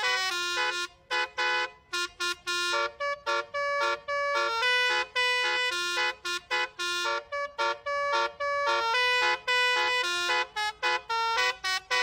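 Bus telolet musical horn playing a tune: a melody of short and longer horn notes, stepping between pitches with brief breaks.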